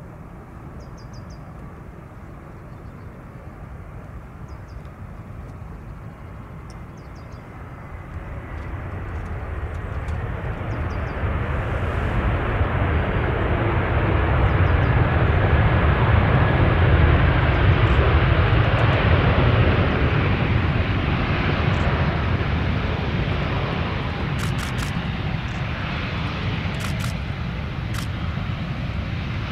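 Jet engines of an Airbus A319 during its landing roll: a steady rushing engine noise that swells about a third of the way in, peaks loud mid-way, then eases off as the aircraft slows.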